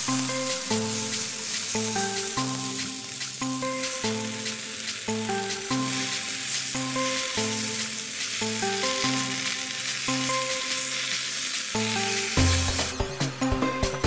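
Spinach sizzling in a hot frying pan as it is stir-fried and turned with wooden chopsticks; the hiss cuts off about a second before the end.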